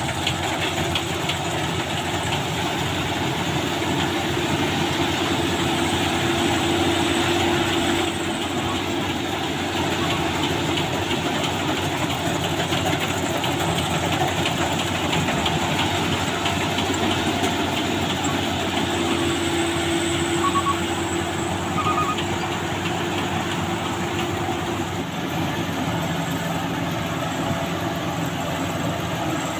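Combine harvester running steadily, its engine and machinery making a continuous loud clattering drone.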